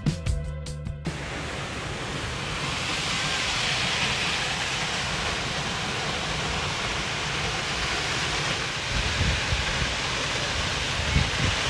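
Steady rush of Hunua Falls, a waterfall plunging into its pool. Low wind buffeting on the microphone comes in near the end.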